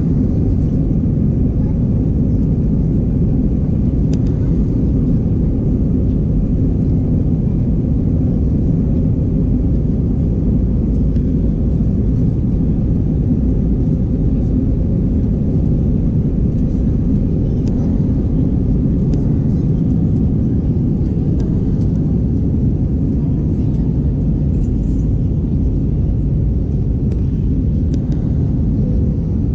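Steady low rumble of a jet airliner's engines and rushing air, heard from inside the passenger cabin in flight.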